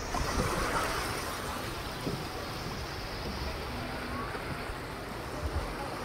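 Small waves lapping and swishing in shallow sea water, with a louder swash about a second in, and wind rumbling on the microphone.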